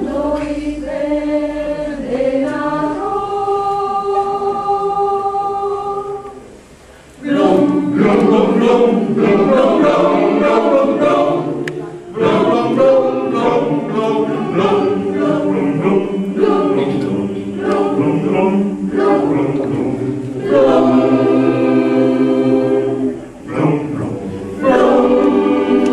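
Mixed choir singing a cappella in parts: soft held chords for the first six seconds, then a louder full passage with quick changing syllables, and sustained chords again near the end before a loud re-entry.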